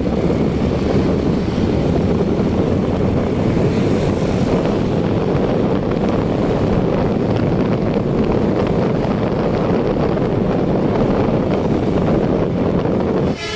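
Steady heavy wind rumble on the microphone while travelling along a road, with vehicle running noise underneath.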